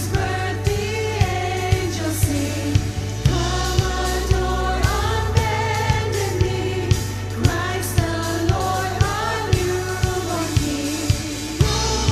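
Worship band playing a song with several voices singing together over bass and a steady drum beat.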